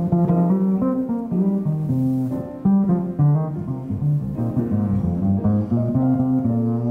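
Live small jazz group playing a composed melody over chords, the notes moving several times a second.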